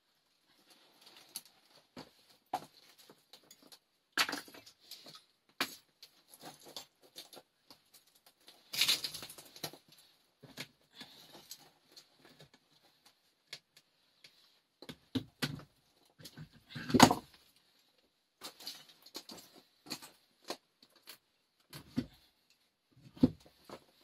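Irregular knocks, clicks and short scrapes and rustles of hands handling materials at a camp. There is a longer scraping rustle about nine seconds in and a heavier knock, the loudest, about two-thirds of the way through.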